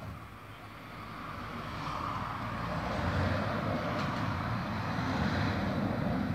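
A vehicle passing by: a steady rushing engine-and-road noise that swells over a few seconds, stays loud through the second half, then starts to fade.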